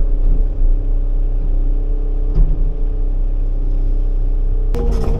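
Cat 310 mini excavator's diesel engine running steadily, heard from inside the closed cab. Near the end a stronger, harsher note comes in as the machine is worked.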